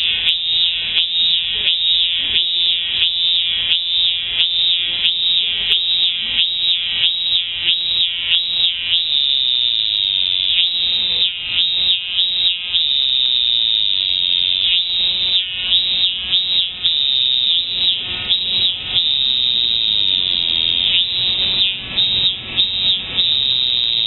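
Cicada singing loud and close: a shrill buzzing call pulsed about twice a second, breaking at times into longer unbroken stretches of a second or more.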